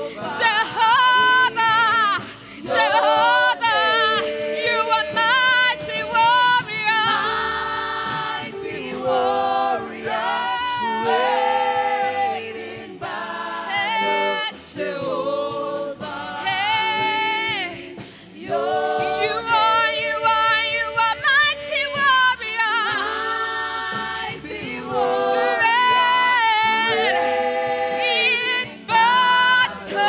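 Several voices singing a worship song together, in phrases of long held, wavering notes with short breaths between them.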